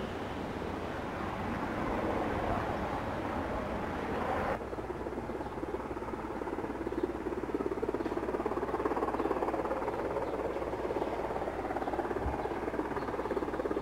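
Steady outdoor background noise, a hiss and rumble without any clear single source. Its tone changes abruptly about four and a half seconds in, at a cut in the recording.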